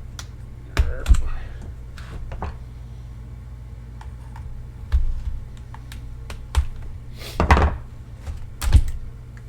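Irregular clicks, snaps and knocks of hard plastic being pried and broken away from a battery pack's cells, the loudest near the start and in the last couple of seconds, over a steady low hum.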